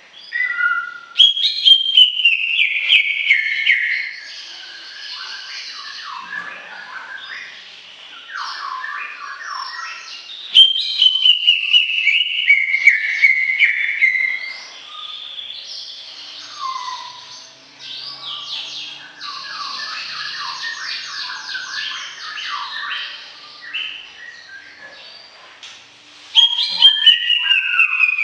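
Cucak ijo (green leafbird) singing a long, varied song: three loud phrases, each opening with a falling whistle, with quieter rapid twittering notes in between.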